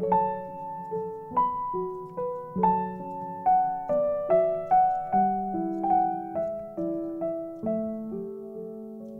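Slow, gentle piano music: a melody of single struck notes that fade over sustained lower notes.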